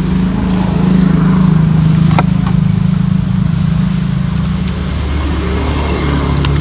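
A motor vehicle's engine running steadily close by, its hum dropping lower about four seconds in. A couple of light clicks about two seconds in.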